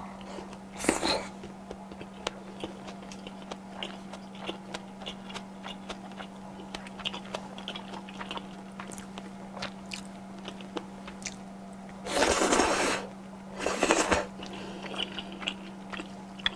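Close-miked eating sounds of udon noodles: a short slurp about a second in, then many soft wet chewing clicks, and two loud slurps near the end. A steady low hum runs underneath.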